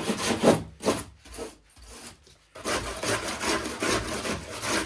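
Hand tool rubbing and rasping on an old wooden door in rapid back-and-forth strokes, as the door is worked over for wood repair. The strokes slow to a few scattered ones for about two seconds, then pick up again steadily.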